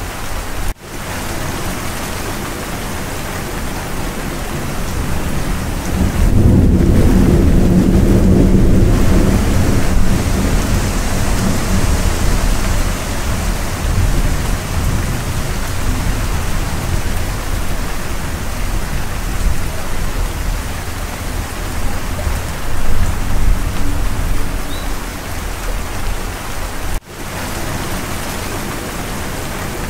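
Steady heavy rain with a long roll of thunder about six seconds in, the loudest part, and lighter rumbles later on. The sound cuts out for an instant twice.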